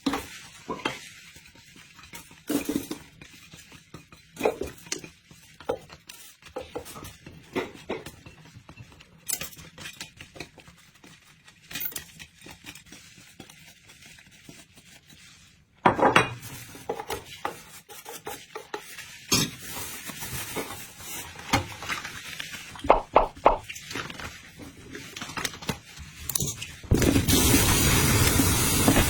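Kitchen clatter: dishes and cutlery clinking and knocking at an uneven pace, busier in the second half. A steady rush of running water starts near the end.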